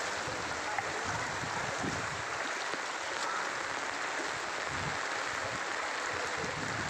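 Water sloshing and swishing as someone wades through standing floodwater, with a steady rushing hiss and a few heavier low sloshes every few seconds.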